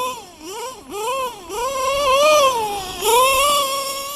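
LRP .32 nitro engine with a Novarossi race carb screaming at high revs in a running RC car, its pitch swinging up and down about five times as the throttle is worked. The high-speed needle is set a bit lean.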